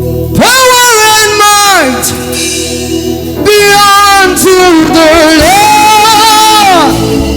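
Gospel praise singing: a loud lead voice sings long, sliding phrases over sustained organ chords.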